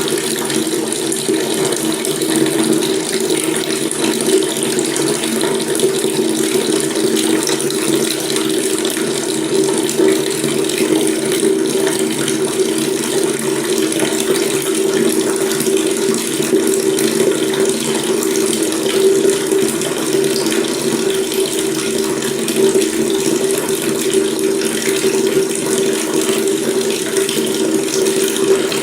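Water running steadily from a faucet tap: a continuous, unchanging rush with a steady low hum under it.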